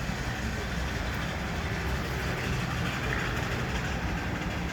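Steady low rumble of running machinery, with no clear beat.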